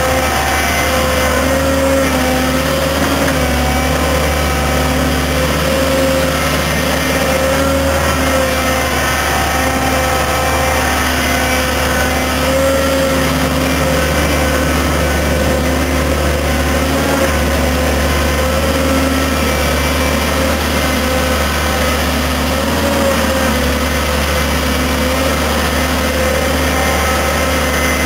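Fiat Hitachi EX165 tracked excavator's diesel engine running steadily under hydraulic load, its note wavering slightly as the boom and bucket work.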